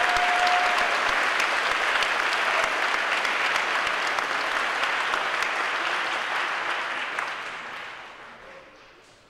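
Crowd applauding steadily, then tapering off and dying away over the last two seconds.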